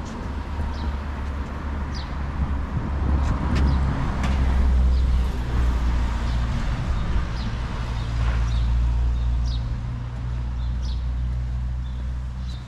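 Low engine rumble of a motor vehicle, steady and swelling louder through the middle before easing off, with a few short high chirps over it.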